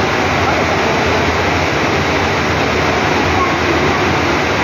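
Steady loud rush of water from a sheet-wave surf simulator, a thin sheet of water pumped at speed up the padded ramp and spraying at its top, with faint voices underneath.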